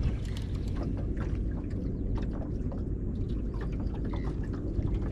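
Water lapping and splashing against a small boat's hull in irregular small slaps, over a steady low rumble of wind on the microphone.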